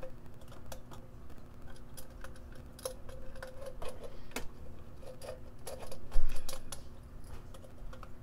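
Light clicks and taps of plastic parts and a small screwdriver as an electric kettle's plastic handle is taken apart, with one louder low thump about six seconds in.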